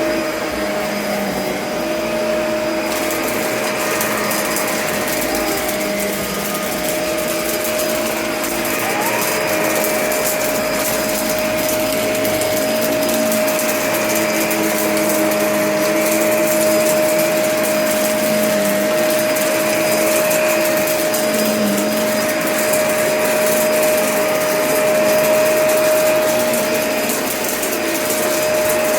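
Vacuum cleaner running steadily with a constant whine, its sound shifting slightly as it is pushed about.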